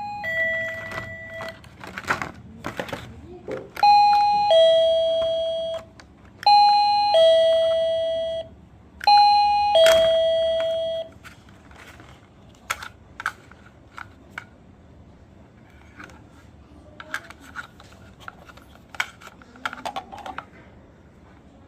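Wireless doorbell chiming a two-note ding-dong, a higher note dropping to a lower held one. The chime sounds four times, about every two and a half seconds over the first eleven seconds, then gives way to scattered sharp clicks.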